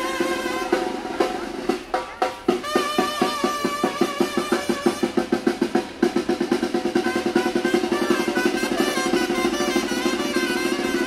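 Street brass band playing, with held, wavering horn notes. About two seconds in, a drum breaks into a fast, even run of strokes, about six a second, for some four seconds before the band plays on with drums underneath.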